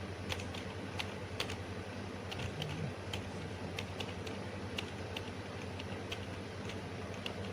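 Computer keyboard keys clicking in an irregular, unhurried run of taps over a steady low hum.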